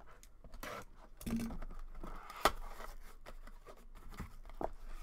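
Trading card packs being opened and handled: crinkling and tearing of wrapper with scattered sharp clicks, the loudest about two and a half seconds in.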